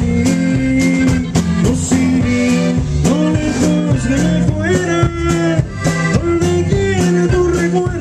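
Norteño band playing live: button accordion melody over bajo sexto strumming, a walking bass line and a steady beat.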